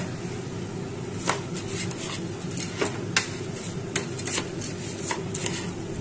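Metal spoon stirring washed rice, black gram and potato pieces in a pressure cooker: a rustle of grains with irregular clinks and scrapes of the spoon against the pot, over a steady low hum.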